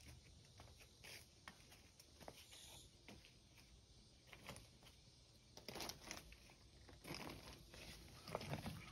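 Faint, irregular crunching and clicking of footsteps on loose slate-chip gravel, getting louder and busier in the second half.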